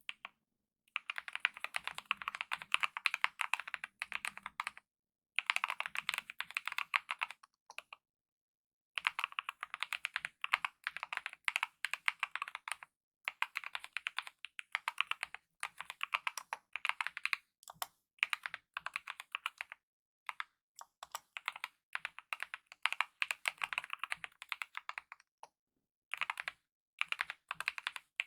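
Typing on a mechanical keyboard with lubed optical red linear switches and DSA-profile keycaps: fast runs of light key clacks in bursts of a few seconds, with short pauses between them.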